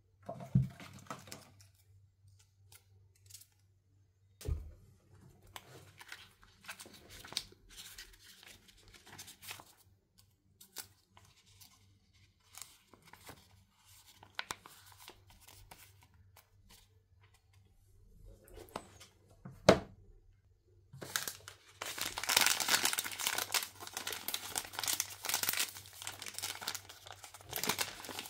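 Small taps and light crinkles as stickers and small toy pieces are handled, with a sharp knock near the start and another about two-thirds of the way in. Over the last seven seconds a wrapper is torn open and crinkled, loud and continuous.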